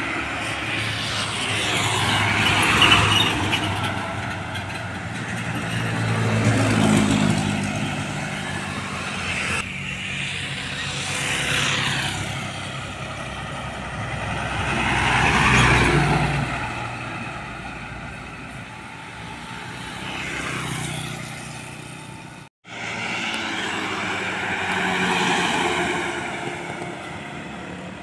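Diesel cargo trucks and cars passing close by one after another on a highway, about six pass-bys, each swelling and fading. The engine hum and tyre noise glide in pitch as each vehicle goes by. The sound drops out for an instant about two-thirds of the way through.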